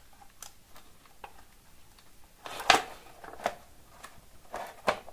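Plastic electrical switchboard being handled and straightened on a concrete floor: a scatter of light knocks, clicks and scrapes, the loudest a little past halfway.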